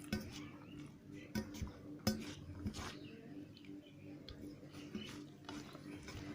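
Eating sounds: rice and rohu fish curry being mixed and eaten, with frequent short clicks, smacks and light scrapes on a plate, over a steady low hum.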